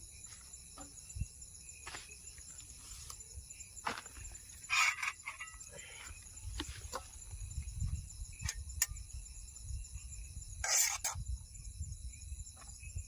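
Steady high chirring of night insects, with scattered light clicks and two short rustles, about five seconds in and near the end.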